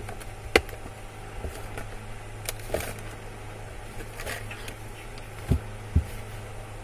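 A few scattered clicks and light knocks of small objects being handled: a sharp click about half a second in and two dull knocks near the end, over a steady low hum.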